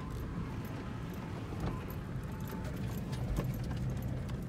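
Truck crawling slowly over a narrow, rocky dirt track, heard from inside the cab: a steady low rumble of engine and tyres with frequent clicks, rattles and scratches from rocks underneath and sagebrush brushing along the sides.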